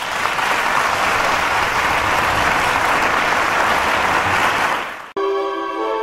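Applause from a crowd, a dense steady clapping that fades and cuts off about five seconds in; string music then starts.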